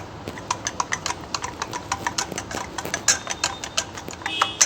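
A spoon stirring biscuit cake batter in a bowl, clicking against the bowl about five or six times a second, with a brief ringing clink near the end.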